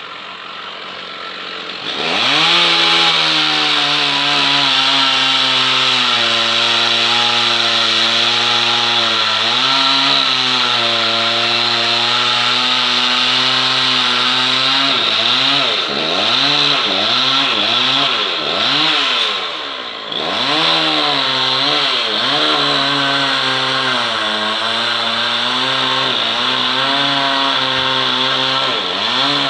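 Chainsaw engine idling, then opened to full throttle about two seconds in and held at high revs while cutting wood. From about halfway the revs swing up and down repeatedly as the throttle is worked, with a brief drop just after two-thirds of the way through.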